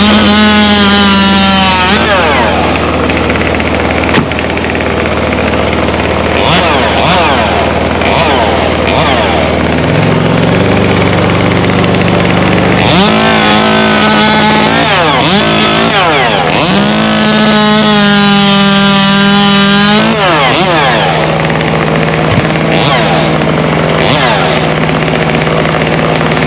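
Two-stroke chainsaw running, idling in between bursts of full throttle: one at the start, a short one about halfway through, and a longer one of about three seconds soon after.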